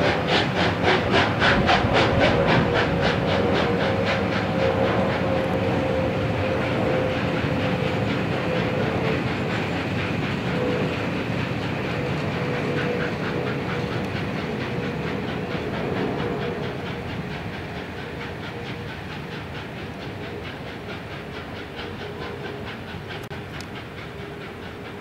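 Three-cylinder steam locomotive 60163 Tornado pulling away with its train, its exhaust beating in a quick, even rhythm over the rumble of the coaches, with a steady high tone throughout. The beat weakens and the sound grows fainter from about two thirds of the way in as the train draws away.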